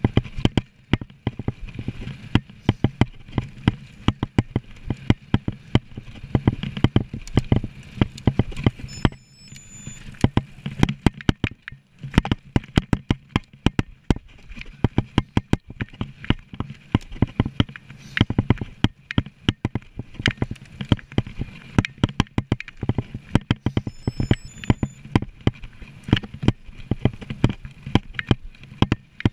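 Mountain bike ridden over rough trail, rattling and clattering with many sharp, irregular knocks over the steady rush of tyres and wind.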